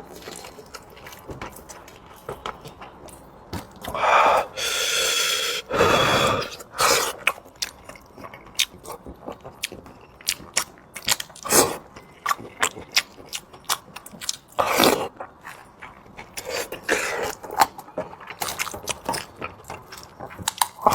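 Close-up eating sounds: chewing and biting, with many short sharp clicks and a few longer, louder noisy bursts.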